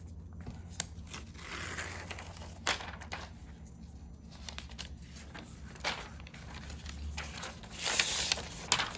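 Protective paper wrap on a new iPad rustling and crinkling as it is handled and peeled off, with scattered light clicks and taps of handling. The rustling is loudest near the end.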